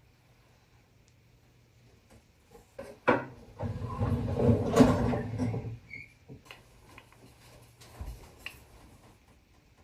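A sharp knock, then about two seconds of kitchen utensils clattering as a drawer is rummaged for a wooden spatula, followed by a few light knocks and a dull thump near the end.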